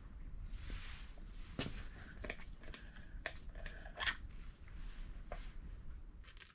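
Faint handling noises from gloved hands working over the engine block: rustling with scattered light clicks and scrapes, the sharpest click about four seconds in.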